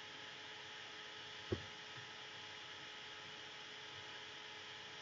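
Steady faint hiss and hum of background noise, with a single soft click about a second and a half in.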